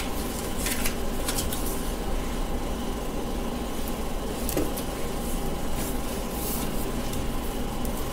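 A few short rustles and rubs of paper and copper foil tape being pressed down by hand, over a steady background hum.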